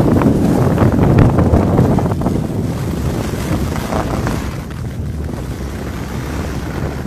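Wind buffeting the microphone of a camera carried by a moving skier, with a few scrapes of edges on packed snow; it dies down steadily over the last few seconds as the rider slows.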